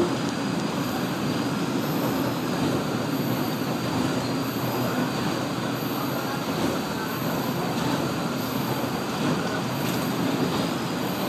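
Steady running noise of a KiHa 47 diesel railcar at speed, heard from inside the carriage: the wheels on the rails and the underfloor diesel engine.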